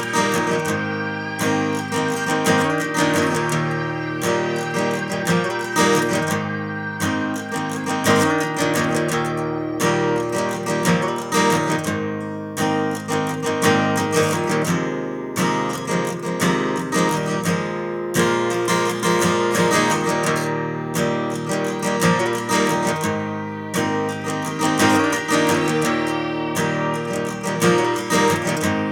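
Background music led by strummed acoustic guitar, with a steady rhythm of plucked notes.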